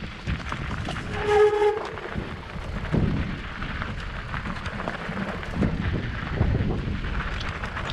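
A Specialized Levo electric mountain bike rattling and bumping over a stony singletrack, with tyres crunching on loose rock and wind buffeting the microphone. About a second in, a brief high squeal sounds for about half a second.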